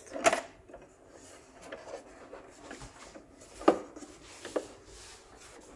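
Hands handling a large plastic Batmobile toy model: a sharp click just after the start, then two softer knocks later on, over faint rubbing of fingers on the plastic body.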